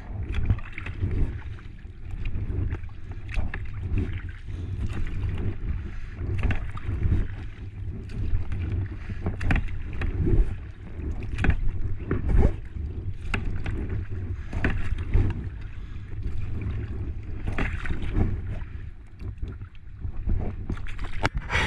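Double-bladed kayak paddle dipping and pulling through the water in strokes about once a second, each stroke a short splash. A low rumble of wind on the microphone runs underneath.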